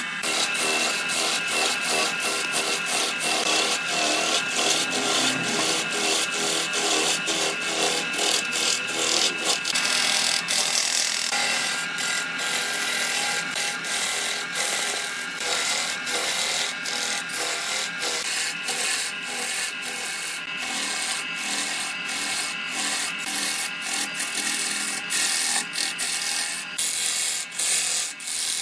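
A hand-held turning gouge cutting into a large wooden blank spinning on a wood lathe: a continuous rough scraping and shaving of wood, broken by many brief dips as the tool skips over the surface.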